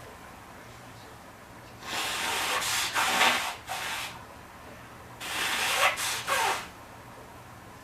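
A person blowing their nose hard, two forceful blows a few seconds apart, each lasting a second or two.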